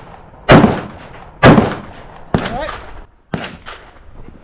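Colt LE6940 M4-style AR-15 rifle firing 5.56 mm rounds: two loud shots about a second apart, each trailing off in an echo. Two fainter sharp reports follow.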